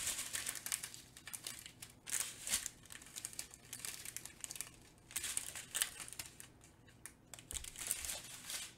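Small plastic bags of diamond painting drills being handled and crinkled close to the microphone, an irregular crackly rustling that swells and fades.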